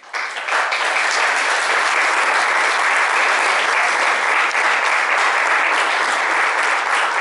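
Audience applauding, many hands clapping at once, steady and loud.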